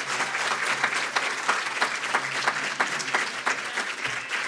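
Audience applauding, many hands clapping together, thinning out a little near the end.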